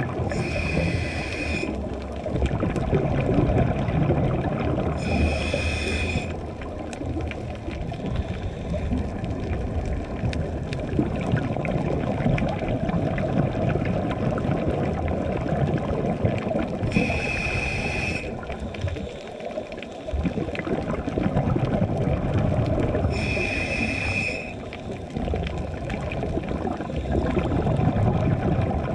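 Scuba regulator breathing heard underwater: four inhalations, each a hiss of about a second with a steady high whistling tone in it, spaced several seconds apart, over a continuous low bubbling, gurgling rumble of exhaled bubbles and water.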